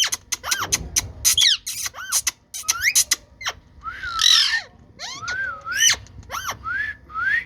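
Green ringneck parakeet calling in short chirps and squawks: quick rising and arching whistles, one harsher squawk about four seconds in, mixed with many sharp clicks.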